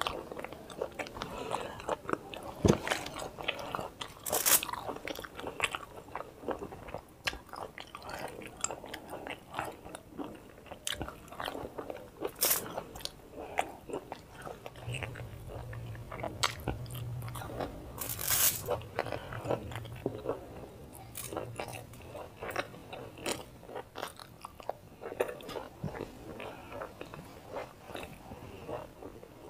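Close-miked eating of momos (steamed dumplings): irregular bites, wet chewing and mouth clicks, with a few louder bites. A low hum comes in for several seconds past the middle.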